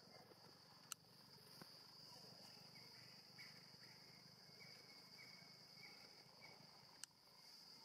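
Faint forest ambience: a steady, high-pitched insect drone, with a short chirp repeated about twice a second in the middle. Two sharp clicks sound, one about a second in and one near the end.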